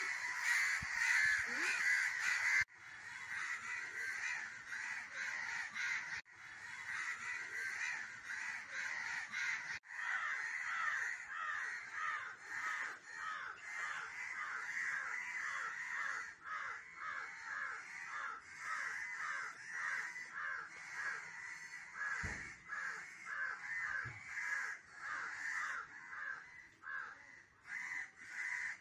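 A crow cawing over and over, about two caws a second, as it is pinned and bitten by a kitten: the distress calls of a crow caught by a cat.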